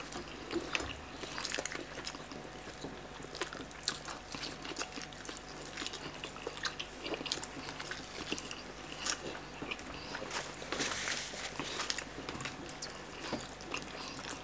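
Two people eating whole roast chickens with their hands: close-up wet chewing and lip-smacking, with many small clicks and crackles as meat and skin are torn off the bird. A longer rustling noise comes about three-quarters of the way through.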